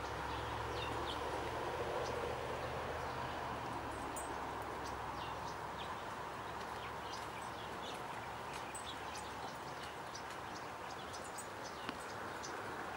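Steady outdoor background noise with a low hum, and small birds chirping in short, repeated calls; a single sharp click near the end.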